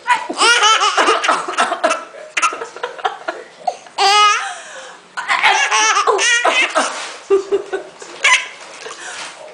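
A baby laughing in hearty, high-pitched bouts: a long burst at the start, a falling squeal about four seconds in, and more bursts after the halfway point.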